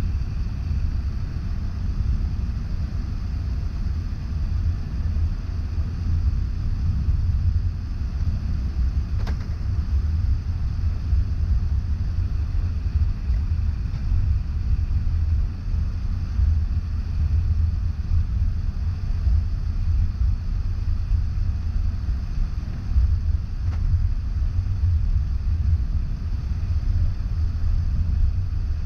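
Steady low rumble of an airliner cabin as the jet taxis on the ground, with two faint clicks, one about nine seconds in and one near the end.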